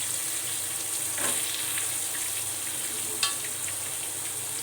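Chopped onions sizzling as they fry in hot oil in a pan, a steady hiss with a few light clicks of the spatula against the pan, a sharper one near the end.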